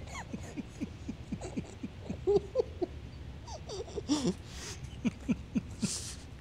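Muffled, squeaky stifled laughter and hums through closed lips from people with their mouths stuffed full of marshmallows: many short chirps, each sliding up or down in pitch.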